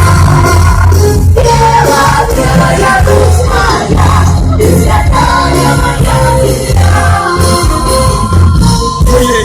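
Loud concert music: a singer over a band with a heavy, pulsing bass.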